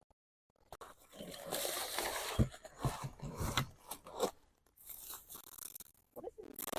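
Irregular crunching and scraping of soil being dug through for potatoes, close to the microphone, with a few sharp knocks.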